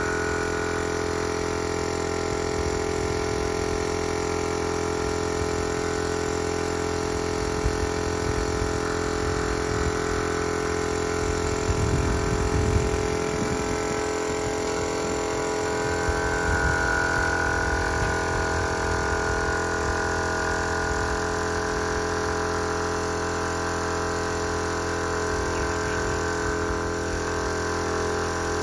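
Small air compressor running steadily, with a spray gun's air hissing at times. A few dull knocks about twelve seconds in.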